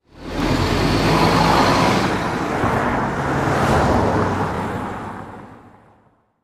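A car driving past: a rush of engine and road noise that cuts in suddenly, holds loud for a few seconds, then fades away.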